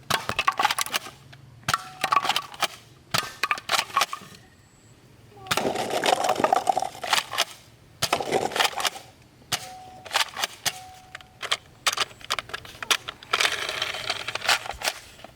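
Plastic toy guns clicking and rattling in quick bursts of sharp clicks, with two longer stretches of dense rattling.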